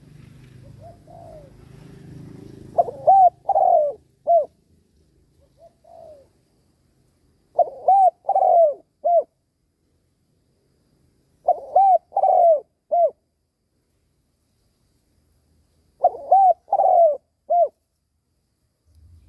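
Spotted dove cooing: four phrases of three quick arching coos and a short final note, about four seconds apart, with a few faint single coos before them.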